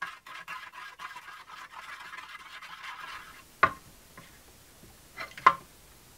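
Metal spoon stirring baking soda into water in a clear plastic tray: quick scraping and clicking against the plastic for about three seconds. Then a few sharp knocks, the loudest a little past halfway and a pair near the end.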